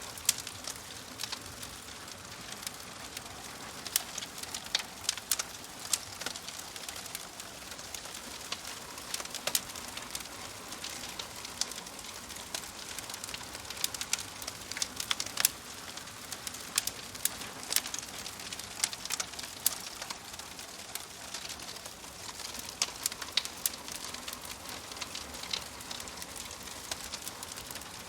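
Logs burning in a fireplace, crackling: a steady hiss with frequent sharp pops and snaps at irregular intervals.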